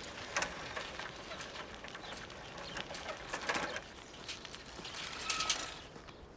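Bicycle ridden over a gravel path: tyres crunching on the gravel, with scattered clicks and rattles from the bike.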